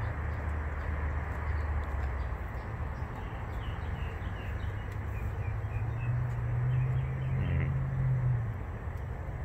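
Outdoor yard background: a steady low hum with a bird chirping a run of short notes through the middle.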